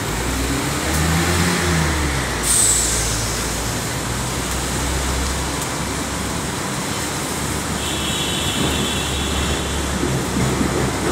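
Busy city street traffic: vehicle engines running with a steady road rumble. A sudden loud hiss comes about two and a half seconds in, and a brief high squeal about eight seconds in.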